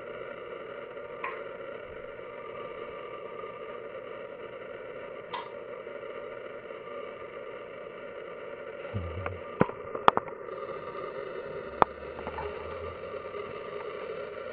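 A baby hiccuping, short soft hics about four seconds apart, over a steady background hum. Near the end come a low bump and several sharp clicks, the loudest sounds here.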